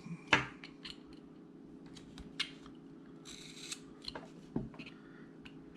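Carving knife cutting into wood in small strokes: a few sharp clicks and one short scraping slice, over a faint steady hum.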